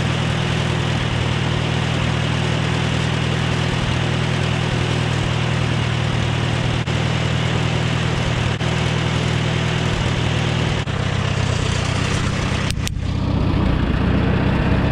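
Farmall tractor engine running at a steady idle while it powers the front-end loader, with a brief break near the end.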